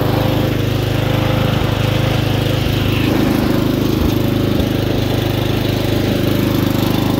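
1998 Murray 12.5 hp riding mower's engine running steadily as the mower drives along.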